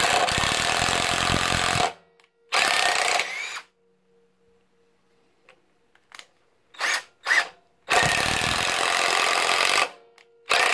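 Bauer 20V compact impact driver driving a 3-inch deck screw, its impact mechanism hammering in trigger bursts. There is a two-second run at the start and a shorter one about three seconds in, then a few quick blips, and another two-second run near the end.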